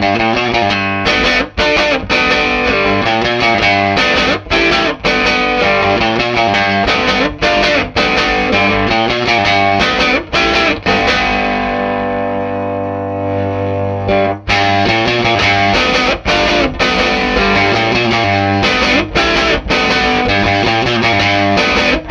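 Overdriven electric guitar played through a Dusky D₂O tube amplifier: chords strummed in a steady rhythm with short breaks. About halfway through, one chord is left to ring for about three seconds before the playing picks up again.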